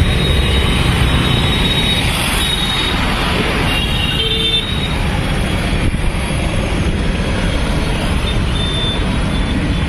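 Busy city road traffic: a steady rumble of vehicle engines and road noise, with a short horn toot about four seconds in.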